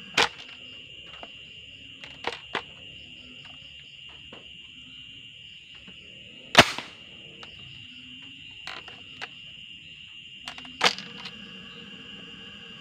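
Hard plastic clicks and knocks from the bolt action of a homemade PVC gas gun being worked by hand, about seven in all, the loudest roughly halfway through. Behind them runs a steady high chirring of crickets.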